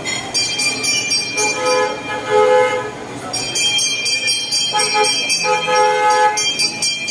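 Loudspeaker on a trackless mini train ride playing recorded train sounds: whistle-like toots held about a second each, twice, over a quick, even jingling beat.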